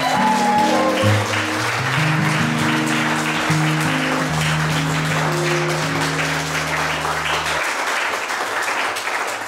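Audience applauding over music of held, slowly changing low chords; the music stops about three-quarters of the way through while the applause carries on.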